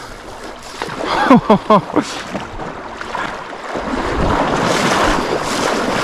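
Wind buffeting the microphone over rushing river water, swelling into a steady rush in the second half. A few short pitched cries, rising and falling, come about a second in.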